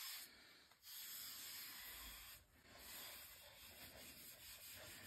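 Cloth pad charged with pumice and linseed oil rubbing along a wooden gunstock, a faint scrubbing with brief pauses between strokes, as the gloss finish is rubbed down to a satin luster.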